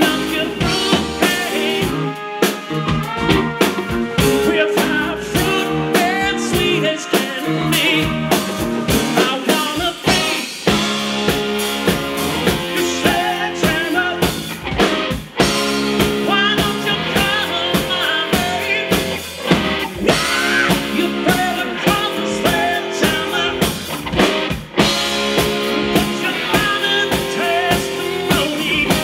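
A live band playing a blues-rock cover: electric bass, drum kit and electric guitar with sung vocals and saxophone, a steady beat marked by regular drum hits.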